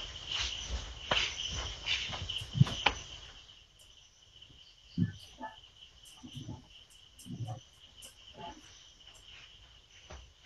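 Crickets chirping steadily, with scattered sharp knocks and rustles in the first few seconds and a few soft low thumps later on.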